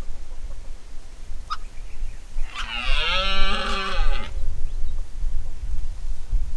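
Red deer stag roaring in the rut: one long call with a wavering pitch, starting about two and a half seconds in and lasting nearly two seconds.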